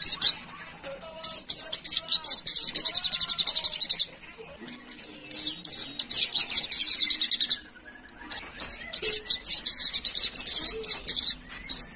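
Olive-backed sunbird (sogon) singing: three bursts of rapid, high-pitched song, each about two to three seconds long, with short pauses between.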